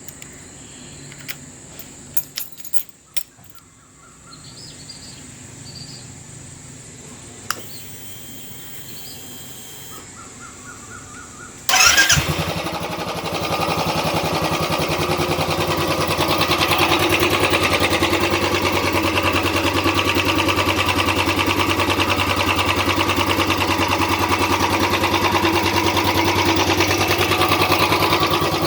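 Royal Enfield Classic 350's single-cylinder engine starting about twelve seconds in with a sudden loud burst, then settling into a steady idle. A few sharp clicks come before it.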